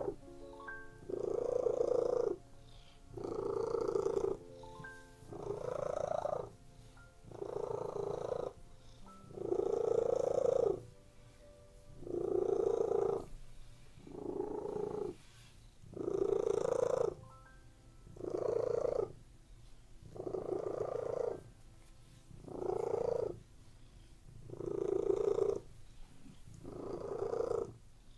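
Domestic cat purring, swelling and fading in regular pulses about every two seconds, with soft background music tones underneath.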